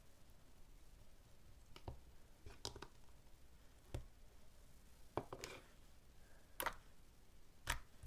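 Mixed slime being handled, giving irregular soft clicks and pops, a few of them in quick clusters.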